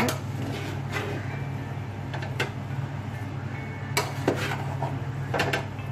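A spoon scraping and clinking against a metal pot while stirring thick rice, in several separate strokes, over a steady low hum. The rice is stirred to keep it from catching on the bottom of the pot.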